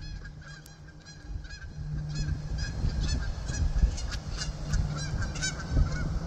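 A bird calling over and over: a rapid series of short, high calls, about three a second, with a low rumble underneath.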